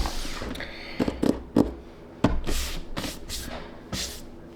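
Small objects being handled and set down on a desk: several sharp knocks and taps, with a few short hissing rustles in the second half.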